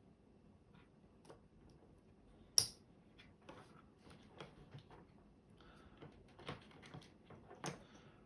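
Faint clicks and rustles of electrical wires and a connector being handled while a live wire is joined to a button wire in a junction box, with one sharp click about two and a half seconds in and another near the end.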